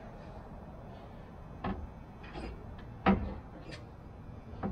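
A light airplane's control stick assembly being fitted by hand into its bearing blocks, knocking against the brackets and wooden frame: about five short knocks and clicks, the sharpest a little past three seconds in.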